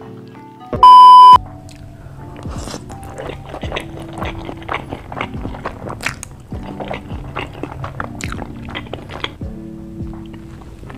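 Close-up eating sounds, crisp crunching bites and chewing of fried food, over background music. A loud, half-second beep cuts in about a second in.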